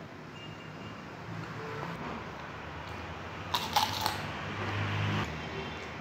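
Crisp crunching of a bite into raw cucumber: a few sharp snaps a little past halfway, then about a second of close chewing that stops suddenly.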